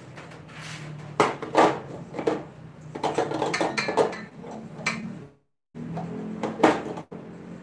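Stainless steel mixing bowl clanking as it is handled and set into the base of a stand mixer: a series of sharp metal knocks, spread unevenly.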